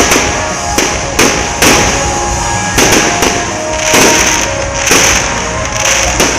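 Aerial fireworks display: a rapid series of shell bursts, about nine booms in six seconds, with continuous crackling between them.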